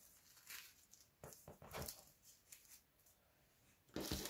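Small plastic zip bags of round acrylic diamond-painting drills being handled and set down: soft, scattered crinkles and rustles, with a louder cluster about four seconds in as another bag is picked up.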